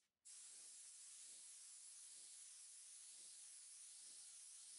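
Faint, steady hiss of a gravity-feed paint spray gun laying down a coat of epoxy primer, starting about a quarter second in.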